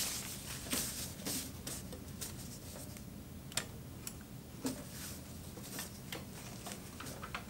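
Faint, scattered small clicks and light rustling of slippery sil poly fabric being handled and positioned at a Kenmore 158 sewing machine while the presser-foot pressure is adjusted by hand.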